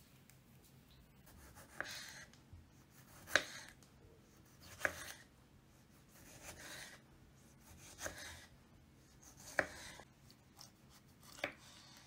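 Knife slicing a tomato into rounds on a wooden cutting board: about six strokes, roughly one every one and a half seconds, each a soft cutting sound ending in a sharp tap of the blade on the board.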